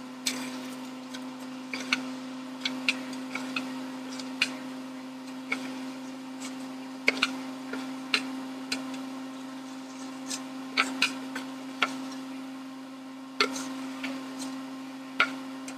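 Irregular light clicks and knocks, a few a second at most and unevenly spaced, over a steady low hum.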